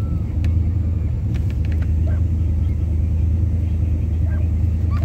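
Steady low rumble of a vehicle's engine running, with a few faint clicks and short, faint high calls in the distance.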